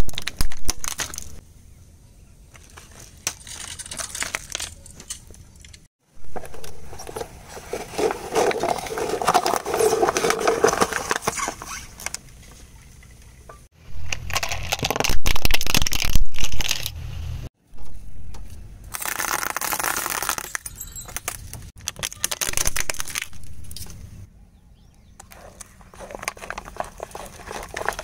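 A car tyre crushing plastic toys and paper cups: repeated cracking, snapping and crunching, in several separate takes that cut in and out abruptly.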